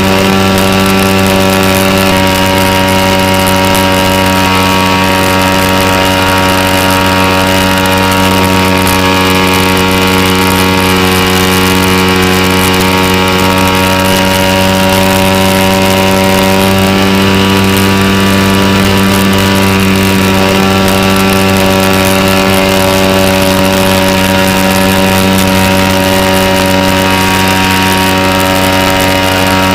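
Engine of a Sig Kadet Senior model airplane running steadily at an even throttle in flight, heard up close from the onboard camera, its pitch holding constant throughout.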